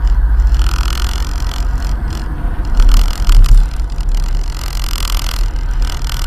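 Low rumble of a car's engine and road noise picked up by a dashcam inside the cabin as the car rolls slowly in traffic, swelling louder for a moment about three seconds in.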